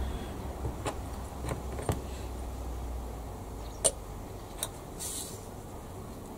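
A few sharp, scattered clicks and taps of small plastic model-kit parts being handled and fitted together, with a short rustle near the end and a low hum underneath that fades about halfway through.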